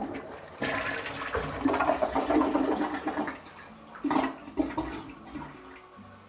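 A low-flow toilet using 1.28 gallons per flush, flushing. Water rushes for about three seconds, gives two short gurgles about four seconds in, then dies down.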